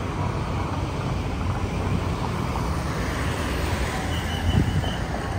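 Outdoor road ambience: passing car traffic with steady wind rumble on the phone's microphone. A faint row of four short high chirps sounds about four seconds in.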